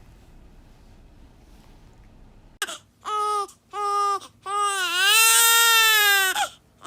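A one-day-old newborn crying hard: after a quiet start, it breaks out about two and a half seconds in with two short cries, then one long wail of about two seconds.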